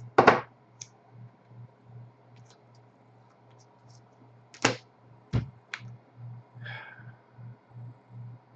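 A few sharp clicks and taps from a computer mouse and keyboard, scattered and uneven, over a low, evenly pulsing hum.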